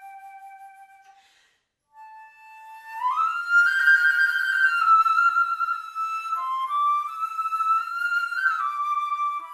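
Solo flute playing slow held notes: a soft note fades out, a short silence follows, then a quiet note swells at about three seconds into loud, sustained higher notes that move up and down in small steps.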